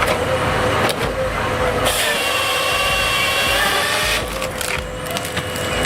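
A wood-cutting machine's motor running steadily, with a louder stretch of cutting into wood from about two to four seconds in.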